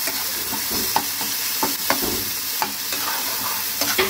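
Tomatoes and spice paste frying in mustard oil in a frying pan give a steady sizzle. A spatula stirring them scrapes and taps against the pan every second or so.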